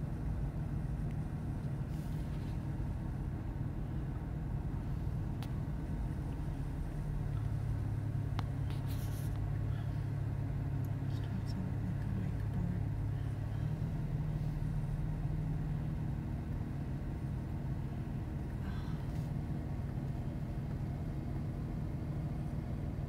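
Steady low rumble with a droning hum whose pitch shifts about 7 and 14 seconds in.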